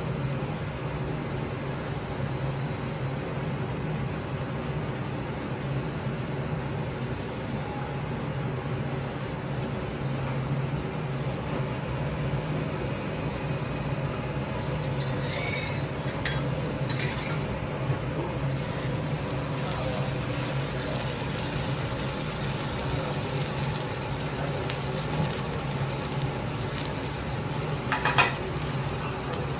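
A steady low hum, then from about two-thirds of the way in, hot oil sizzling on a steel teppanyaki griddle, with a thick wagyu A5 steak searing in it by the end. There is a sharp knock near the end.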